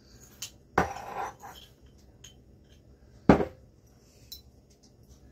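Kitchen utensils and containers being handled on the counter: a few light clicks and clatters, then one sharp knock a little past three seconds in, the loudest of them.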